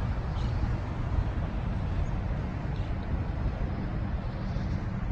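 Steady low rumble of road traffic, with no single vehicle standing out, and a couple of faint high chirps.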